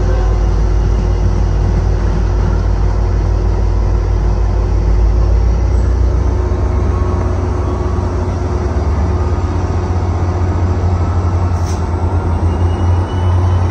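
Passenger trains rumbling at the station: the cars of a passing Amtrak train rolling by on the rails, then the diesel locomotive of a Tri-Rail commuter train running at the platform. A faint rising whine comes in near the end.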